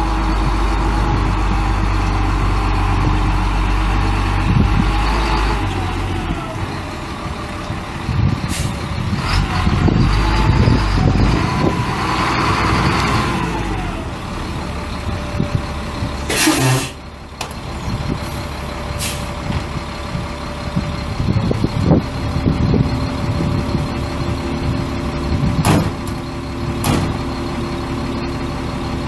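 Caterpillar 3126 turbo diesel engine of a Freightliner FL70 truck running, its pitch and turbo whine rising and falling twice, then settling to a steadier idle. About halfway through there is a short loud hiss of air from the air brakes.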